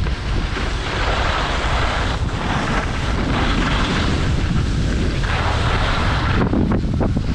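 Wind rushing over the microphone during a fast downhill ski run, with the hiss of edges on snow swelling and easing from turn to turn.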